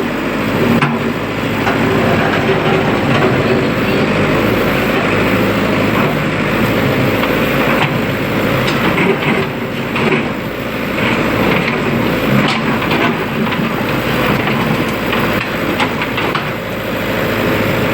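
Diesel engine of heavy road-construction machinery running steadily, with scattered knocks and clanks.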